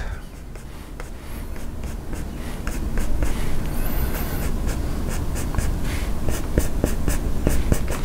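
Dry flat paintbrush scrubbing white acrylic onto canvas in a quick series of short scratchy strokes.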